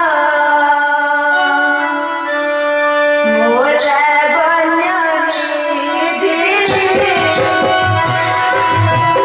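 Stage song in Odia folk-theatre style: a voice holding long notes over a sustained keyboard or harmonium accompaniment. Hand-drum strokes join about two-thirds of the way through.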